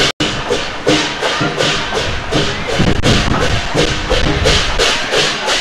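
Lion dance percussion music: a drum and clashing cymbals keep a steady beat of about three strikes a second. The sound cuts out for a split second just after the start.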